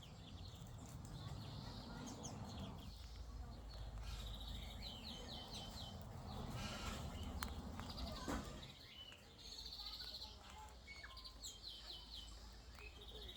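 Parrots chattering: short, rapid pulsed calls every few seconds, with a few sharp clicks over a steady low rumble.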